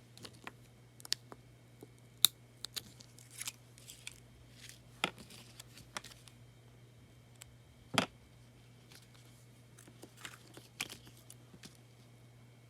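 Paper and cardstock craft pieces being handled and cut on a work surface: scattered light taps, clicks and short rustles, the sharpest about two seconds and about eight seconds in, over a faint steady low hum.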